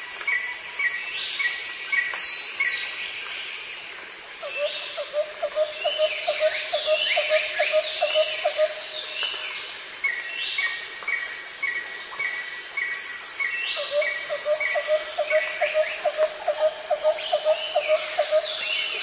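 Night chorus of crickets and other insects: a steady high trill with runs of short repeated chirps and quick sweeping calls. Twice, a lower call of rapid even pulses runs for about five seconds.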